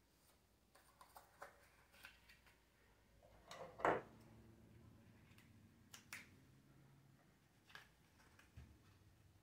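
Paper being handled and folded by hand: soft rustles and light clicks, with one louder crinkle about four seconds in.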